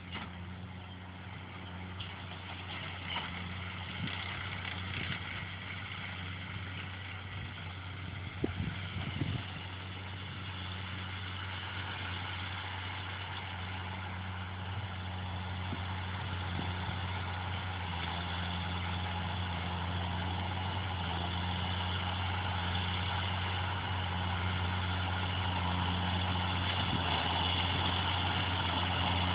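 Fendt 716 tractor running under steady load, pulling a New Holland BB 940 square baler that is picking up and pressing hay; a steady low engine hum with machinery clatter that grows louder as the rig approaches. A few brief knocks sound about a third of the way in.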